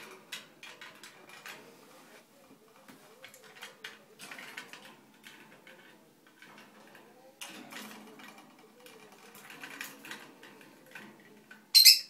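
Pet parrot chattering and warbling in its cage: a stream of clicks, chirps and small rising and falling warbles, ending with one short, loud, shrill call just before the end.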